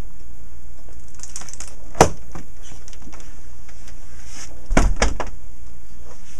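Pages of a large book rustling as they are turned, a sharp knock about two seconds in, then two or three quick knocks as the book is shut and handled on a tabletop, over a steady background hiss.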